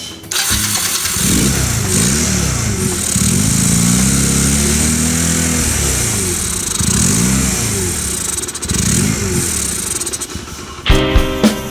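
Honda Rebel 250 motorcycle's air-cooled parallel-twin engine running and being revved up and down four or five times; the bike idles badly after years of standing. Music with a strong beat cuts in near the end.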